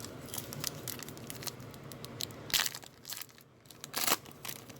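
Crinkling and rustling of a foil trading-card pack wrapper being handled and torn, with many small clicks and two louder rustles about two and a half and four seconds in.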